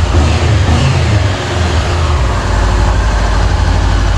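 Honda CB500X's parallel-twin engine running with the bike on its center stand, rising briefly in the first second or two and then settling to a steady run.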